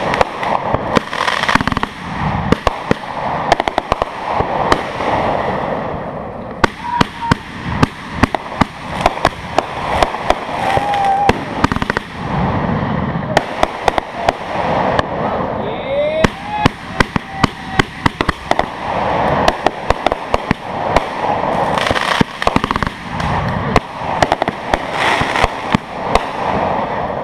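Fireworks display: aerial shells and stars bursting in a dense, continuous run of sharp bangs and crackles, many in quick succession, with no gaps.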